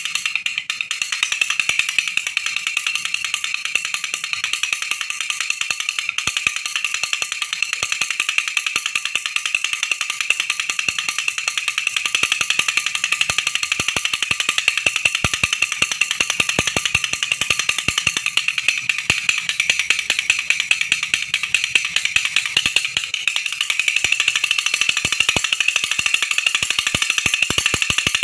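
Baby rattle shaken continuously: a dense, rapid, high rattling of small beads with almost no bass, steady throughout.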